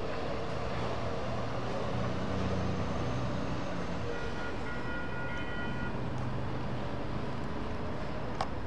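Steady rumble of passing traffic, with a brief high squeal of several tones about four seconds in and a sharp click near the end.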